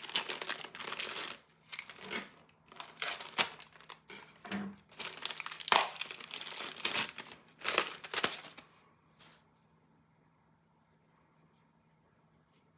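Thin clear plastic bag crinkling and rustling in irregular bursts as a toy lion figure is worked out of it; the crinkling stops about nine seconds in.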